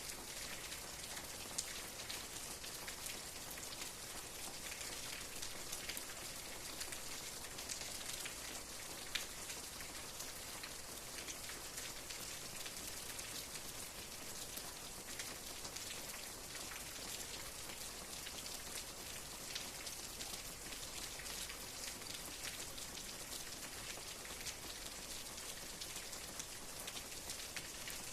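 Steady rain falling, a continuous hiss with the scattered ticks of individual drops striking a surface.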